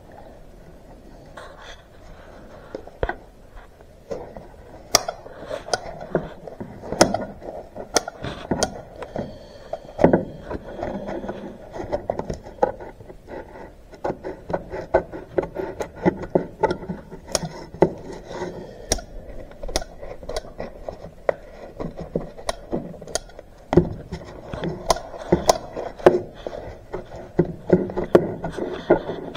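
Hand-held tin snips cutting around the edge of a thin sheet. There is an irregular run of sharp snip clicks, with the sheet rubbing and rustling as it is handled between cuts.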